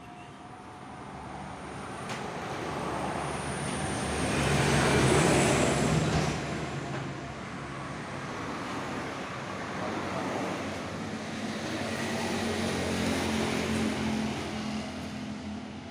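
A vehicle engine running, swelling louder about five seconds in and then settling to a steady run.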